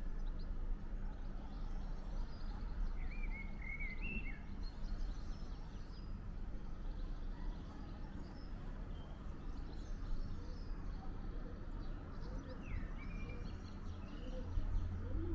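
Outdoor background: a steady low rumble with faint bird chirps now and then.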